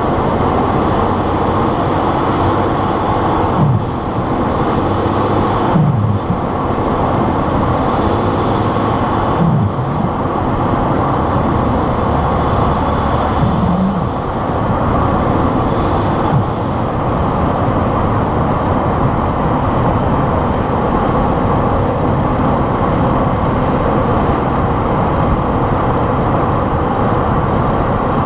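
A 2011 Ford F-150's 3.5-litre twin-turbo EcoBoost V6 running under the hood while driving. Through the first sixteen seconds the turbo whistle rises and falls about five times as the throttle is opened and eased off, and each let-off brings a short, low belching noise, which Ford puts down to the blow-off valve. After that the engine runs steadily.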